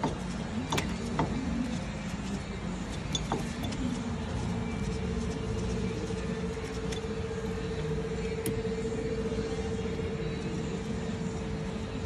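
Steady low mechanical hum in the background, with a few light metallic clicks as the new hub assembly's mounting bolts are hand-threaded into the steering knuckle. A steady mid-pitched tone joins about four seconds in.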